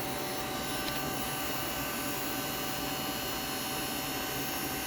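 Steady machinery hum with a fixed high whine over a broad rushing noise, as from an electric motor or fan running.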